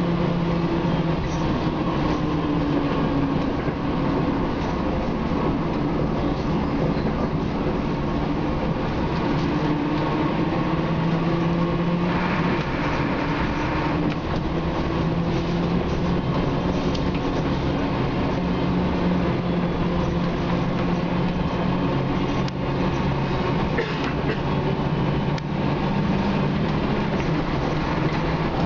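Scania K93CRB bus's rear-mounted nine-litre six-cylinder diesel engine running under way, heard from inside the passenger saloon along with road noise. The engine note holds steady and shifts in pitch now and then, and a brief hiss comes in about halfway through.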